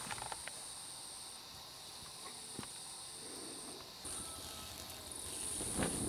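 Insects trilling in a high, steady buzz that breaks off and starts again every second or two, over a fainter continuous hum of other insects. A few faint clicks come at the start and a soft rustle near the end.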